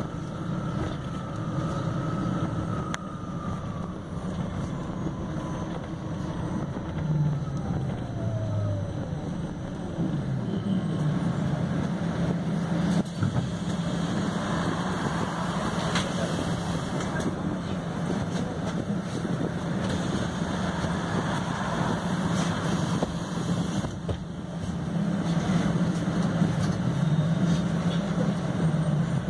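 Ride noise of a MAN Lion's City Hybrid city bus under way, heard from inside: a steady low drive hum with road noise. A thin whine falls in pitch in the first few seconds and again a few seconds later, and the noise grows somewhat louder later on.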